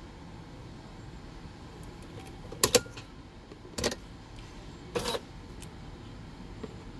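A few sharp clicks and knocks inside a van cab with the engine off: two quick clicks a little before halfway, another about a second later, then a short rattle a second after that, over a low steady background hiss.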